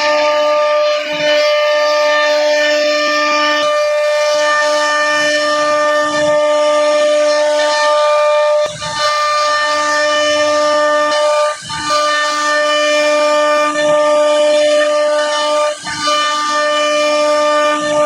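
CNC router spindle whining at a steady high pitch while cutting wood, with short dips in the sound every two or three seconds.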